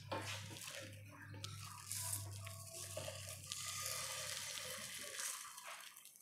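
Wooden spatula scraping and sliding under a fried egg in a Jade Cook non-stick frying pan as the egg is lifted and flipped, over a faint crackling sizzle of eggs frying without oil. A low hum stops about five seconds in.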